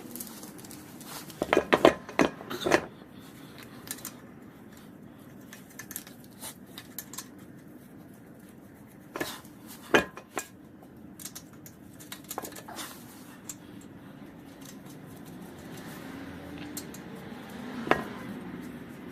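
Metal clinks and knocks from lug nuts and hand tools while a wheel is mounted back onto the hub: a quick cluster of sharp clinks early on, a single loud knock about halfway, and another near the end.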